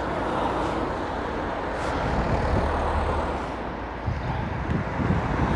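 Road traffic passing close by on a town street: a steady rushing of tyres and engines, with a low engine rumble swelling about two to three seconds in.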